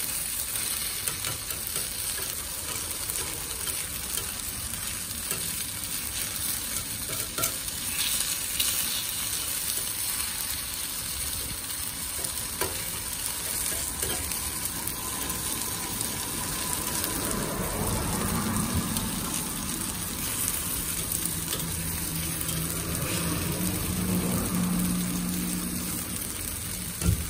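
Takoyaki sizzling in the wells of a three-plate iron takoyaki grill as the balls are turned with a metal pick, with occasional light clicks of the pick against the plate.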